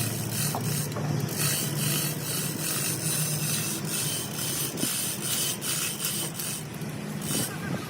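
Hand-tool work on engine parts: irregular scraping and clicking of metal over a steady low hum.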